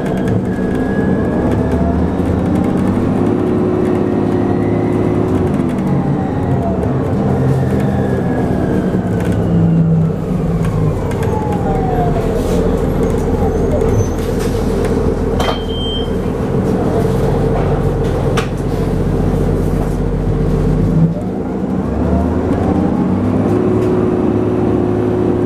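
Orion VII NG hybrid bus under way, heard from inside the cabin: its engine and drive hum in several steady tones that step up a few seconds in, drop back, and step up again near the end, with a whine that falls slowly through the middle.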